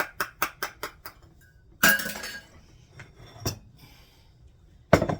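A whisk beating vinaigrette in a small bowl, rapid even clinks about five a second, stopping about a second in. Then three separate clinks and knocks of dishes being handled, the last the loudest near the end.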